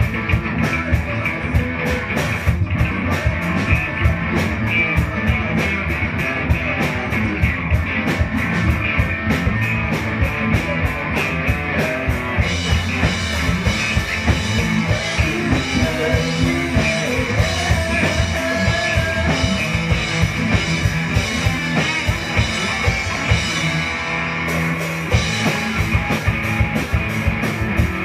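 Live rock band playing electric guitars over a driving drum kit. Near the end the drums and cymbals drop out for about a second, then the full band comes back in.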